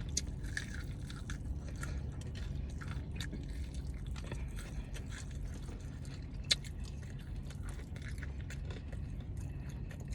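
Close-miked eating: biting and chewing fried chicken, with many small crunches and mouth clicks and one sharper click about six and a half seconds in, over a steady low hum.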